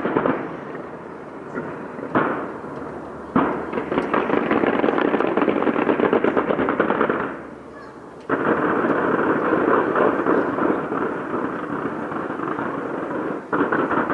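Fireworks display going off in rapid volleys of dense crackling bangs. New volleys start abruptly about 2, 3.5, 8 and 13.5 seconds in, with brief lulls between.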